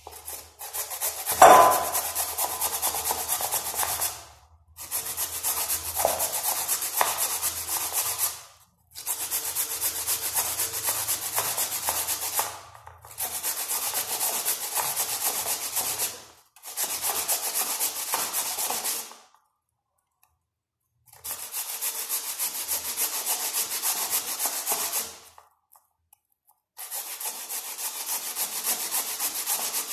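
A peeled turnip being grated on a fine hand grater: runs of quick rasping strokes, each lasting three to four seconds, with short pauses between. A sharp knock about a second and a half in is the loudest sound.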